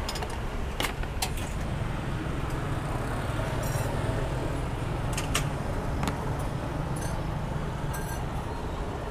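Light metal clinks of a noodle strainer and tongs against ceramic bowls as hủ tiếu bowls are filled, a few separate clicks over a steady low rumble.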